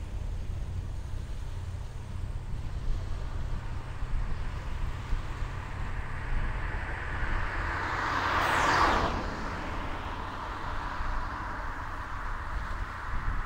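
BMW 320i (F30) with its turbocharged four-cylinder engine passing by: tyre and engine noise swells as it approaches, peaks with a quick drop in pitch as it goes past about nine seconds in, then fades as it drives away.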